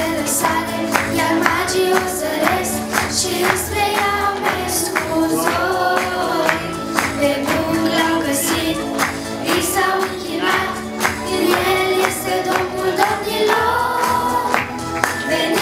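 Children's choir singing into microphones over an amplified instrumental accompaniment with a steady beat.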